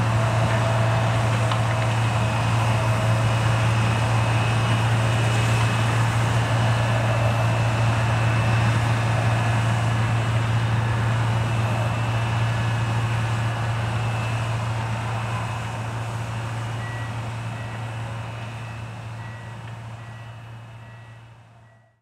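Fendt Ideal 7 combine harvester running steadily in the field, a constant low hum under the noise of the machine at work, fading out over the last several seconds.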